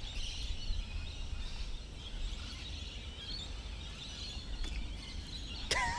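Outdoor ambience: a low wind rumble on the microphone with faint bird chirps in the background. Near the end a man's voice cuts in with an exclamation.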